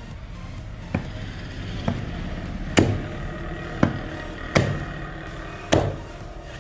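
A heavy knife chopping through a rohu fish onto a wooden chopping block, cutting it into steaks: six sharp chops about a second apart, the third the loudest.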